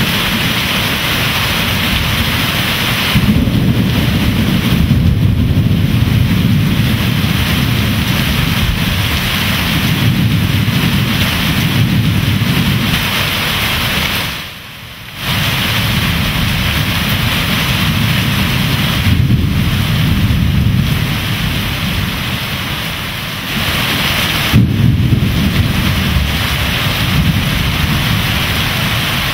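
Torrential rain pouring down without let-up, with repeated rolls of thunder rumbling through it and the sharpest thunderclap about 25 seconds in. The sound drops away briefly about halfway through.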